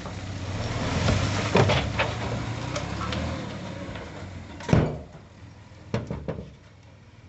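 A heavy diesel machine engine runs with a low rumble that fades away about halfway through. Several sharp metallic knocks sound over it; the loudest comes about two thirds of the way in.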